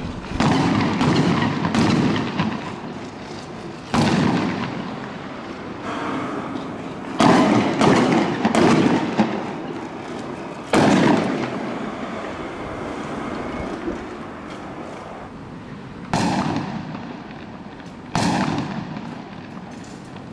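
Fireworks going off in a series of about eight sharp bangs at irregular intervals, each trailing off over a second or two.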